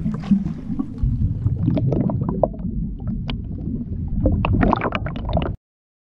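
Air bubbles churning around an underwater camera as scuba divers plunge in from a boat: a muffled low rumble with many crackling pops, cutting off suddenly about five and a half seconds in.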